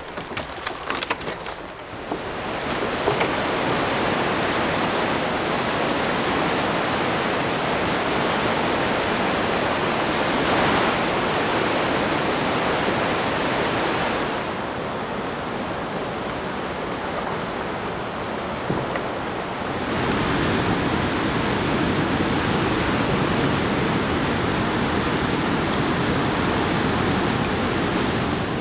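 Steady rushing of whitewater falls and rapids, preceded by about two seconds of footsteps and gear clatter. About halfway through, the rush turns duller for a few seconds before it brightens again.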